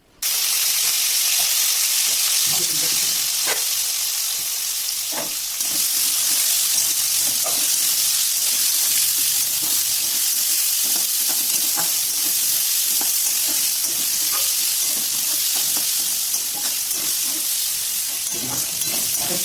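Food sizzling steadily in hot oil in a kadai, with a metal spatula clinking and scraping against the pan now and then as it is stirred. The sizzle starts abruptly.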